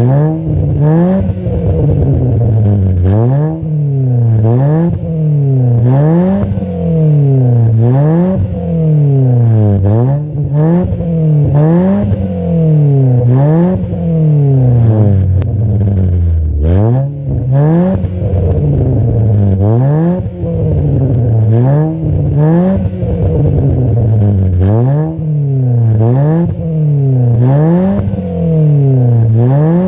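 Ford Lynx's four-cylinder engine free-revving through an aftermarket axle-back exhaust: blip after blip, the pitch rising and falling about once every two seconds as the revs swing between roughly 3,000 and 5,000 rpm.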